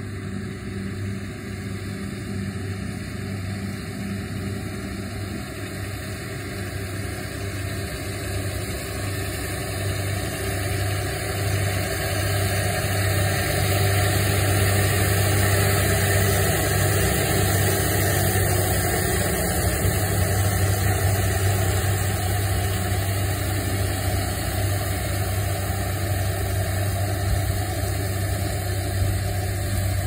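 New Holland tractor's diesel engine running steadily as it tows a working ProBelt round baler, growing louder as the rig passes close about halfway through, then easing a little as it moves away.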